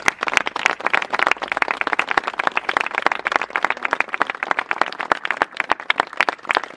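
A small crowd applauding: many hands clapping in a dense, uneven patter.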